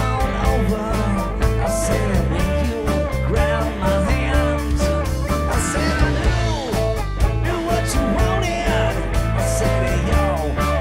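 A rock band playing: electric guitars with bending notes over bass and drums, in a bluesy, honky-tonk rock style.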